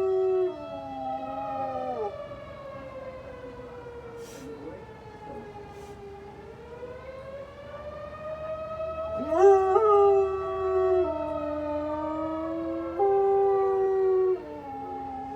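Tornado warning siren wailing in a slow rise and fall, sounded as its weekly Saturday test, with a dog howling along. The dog's held howls sink off in the first two seconds, stop, then come back about nine seconds in with a rising yelp into long howls, and once more near the end.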